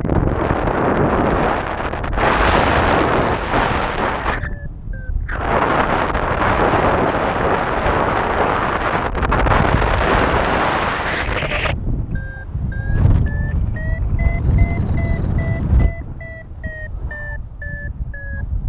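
Airflow buffeting the microphone for the first twelve seconds or so, with a short lull near five seconds. It then gives way to a paragliding variometer beeping in quick, steady pulses, its pitch climbing and then easing slightly, the tone that signals the glider is rising in lift.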